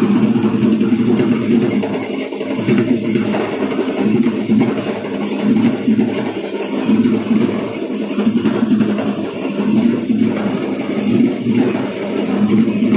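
Loud, steady, dense sound of a Sri Lankan low-country ritual dance, with drumming and the stamping of many dancers blending into one mass without a clear beat.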